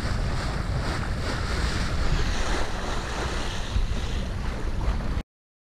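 Wind buffeting the microphone over the wash of sea water around the boat, a loud uneven rumble that cuts off suddenly about five seconds in.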